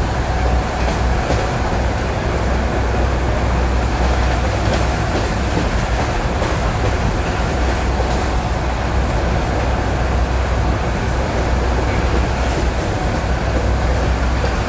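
ED9E electric multiple unit running along jointed track, heard from inside the carriage: a steady low rumble of the running gear with occasional faint clicks of the wheels over the rails.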